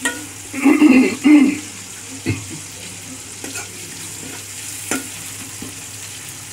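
Sliced onions and green chillies sizzling in hot oil in a steel karahi, stirred with a metal spoon that scrapes along the pan. A louder scrape comes about a second in, and the spoon knocks against the pan twice, a little after 2 s and at about 5 s.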